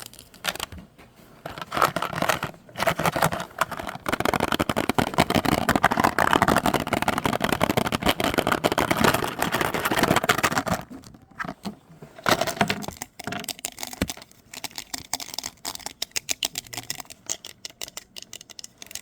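Close-miked scratching and crackling handling noise. It is dense and steady from about four seconds in to nearly eleven seconds, then thins out to scattered clicks and taps.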